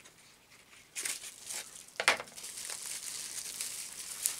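Packaging being opened by hand, crinkling and tearing. It starts about a second in, with one sharp, louder tear about two seconds in.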